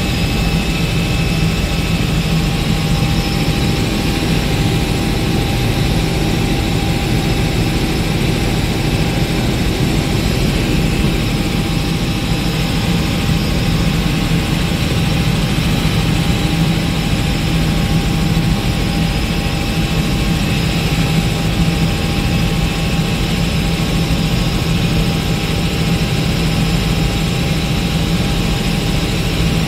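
A Robinson R66 turbine helicopter in cruise flight, heard from inside the cockpit. A steady, unbroken drone of rotor and turbine engine, with a faint steady whine above it.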